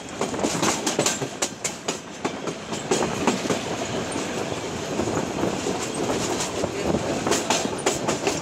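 Passenger train running, heard from aboard a coach: a steady rumble and rattle with irregular clicks of the wheels over the rail joints.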